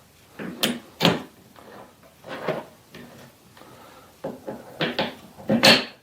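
Metal clicks, knocks and scrapes of a steel jaw being fitted into a 5-inch three-jaw lathe chuck, about six sharp knocks spread over several seconds.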